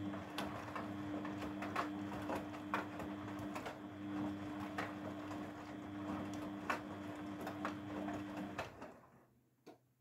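Grundig GWM4762WE20 front-loading washing machine turning its drum: a steady motor hum with water sloshing and the wet laundry tumbling and slapping, which stops about nine seconds in as the drum pauses, followed by a faint click.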